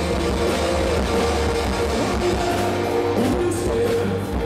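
Live rock band playing loud, with electric guitars to the fore over bass and drums, recorded from the crowd.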